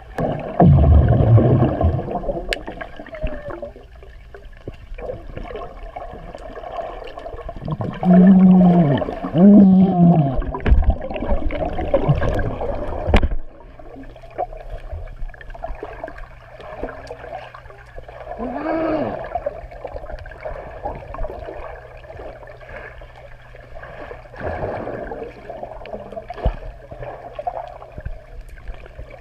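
Swimming pool heard through a submerged camera: muffled gurgling and bubbling water. Muffled voices of swimmers call out underwater a few times, in short rising-and-falling tones, around eight to ten seconds in and again near nineteen seconds.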